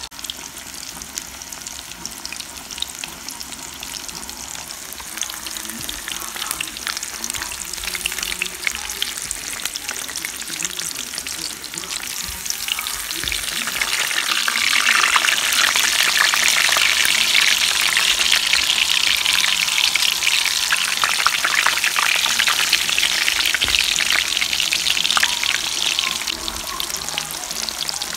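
Breaded pork cutlets (tonkatsu) deep-frying in hot oil: a dense, steady crackling sizzle that grows much louder about halfway through and stays loud.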